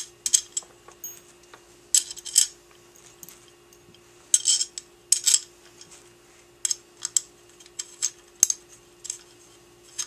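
Small handguard screws and an Allen wrench clinking and clicking against the metal quad rail as the screws are picked up and started into the two rail halves, in scattered clusters of sharp ticks. A steady low hum runs underneath.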